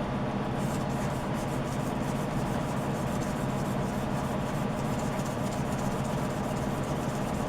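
Sandpaper rubbing back and forth on a corroded brass brazing rod to clean it, a steady scratchy rasping over a low hum.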